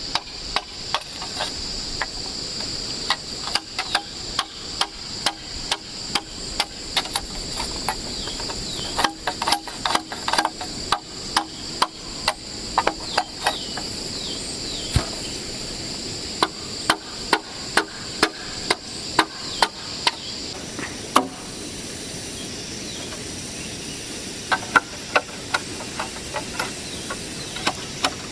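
Steady, repeated strikes of a hand tool on wood or bamboo, about one and a half knocks a second, with a pause of a few seconds near the end before the knocking resumes. High insects drone behind it and stop about two-thirds of the way through.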